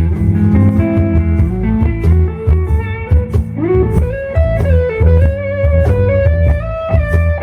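Live blues band playing an instrumental break: an electric guitar lead over bass and drums, bending up into long held notes about halfway through.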